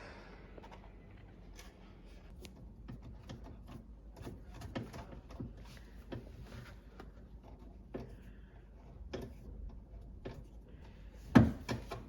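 Scattered light clicks and knocks of small parts and panels being handled, with one heavy thump near the end.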